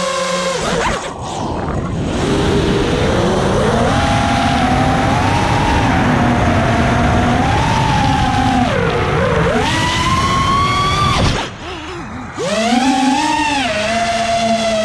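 FPV racing quadcopter's brushless motors whining, the pitch rising and falling with the throttle. The whine drops away briefly about a second in and again about three seconds before the end, then climbs back as the throttle comes up.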